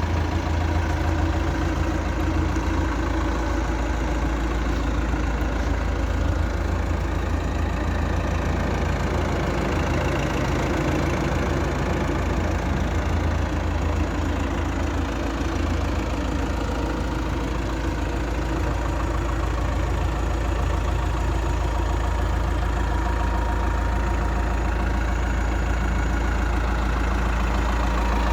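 Diesel engine of a Caterpillar 444 backhoe loader running steadily at an even speed, with a strong low hum and no revving.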